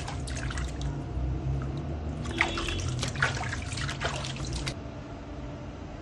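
Water splashing and dripping in a plastic tub as hands scoop it over a wet kitten being bathed, in a quick run of splashes in the first second and again from about two to nearly five seconds in. After that only a low steady hum remains.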